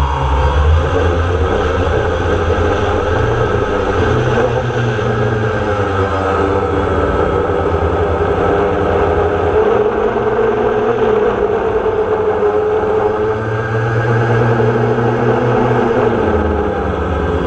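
DJI Phantom quadcopter's motors and propellers heard from the drone's own onboard camera: a steady whine whose pitch drifts up and down as the drone manoeuvres, over a low rumble that swells and fades.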